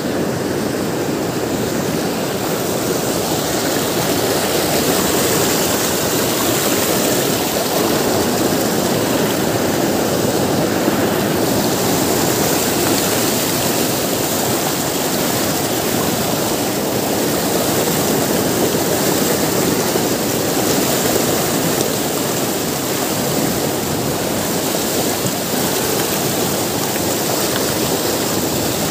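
River rapids rushing steadily and loudly over boulders close by.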